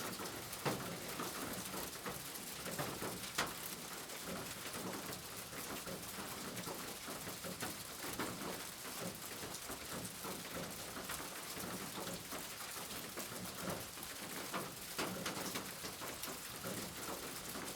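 Steady rain, a dense even hiss, with many sharp drops and drips ticking on a hard surface; a few louder drips stand out near the start.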